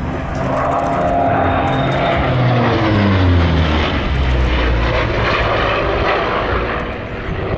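Hawker Fury piston-engined fighter flying past in a display, its propeller engine note falling in pitch as it goes by and then running on as a steady drone.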